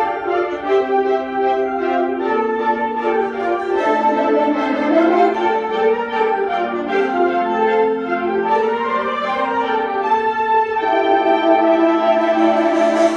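Middle school concert band of woodwinds and brass playing a slow passage: held chords with a melody line moving through them, and a change of chord about three-quarters of the way through.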